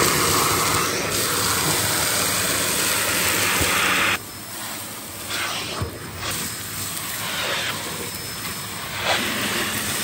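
Dyson DC04 vacuum cleaner running with its hose and stair tool on carpet, a loud rushing hiss of suction as grit is drawn in. About four seconds in it drops suddenly to a quieter, uneven rush.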